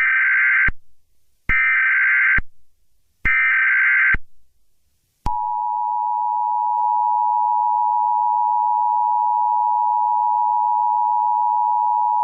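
Emergency Alert System SAME header: three short bursts of buzzy digital data tone about a second and a half apart. About five seconds in, the two-tone EAS attention signal starts and holds steady.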